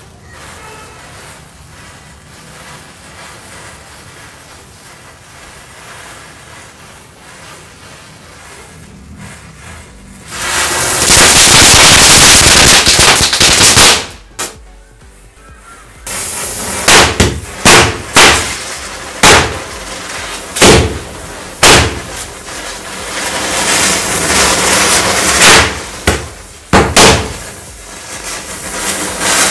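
A burning matchstick chain, quiet for about ten seconds, then a loud rushing hiss as a firework fountain ignites. After a short lull, about ten sharp firecracker bangs go off one after another over the continuing hiss of the fountain spraying sparks.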